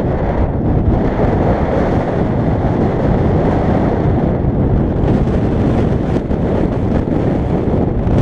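Wind buffeting the camera's microphone: a loud, steady low rumble with no break.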